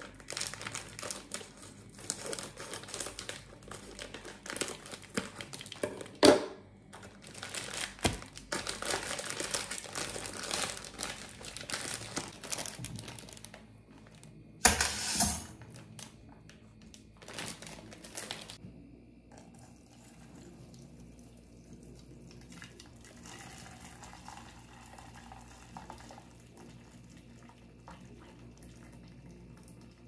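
Plastic wrapping on a pack of dry spaghetti crinkling and tearing as it is opened, with sharper rips about 6 and 8 seconds in. About halfway through there is one loud short clatter as the dry spaghetti goes into a metal pot, after which things go quiet.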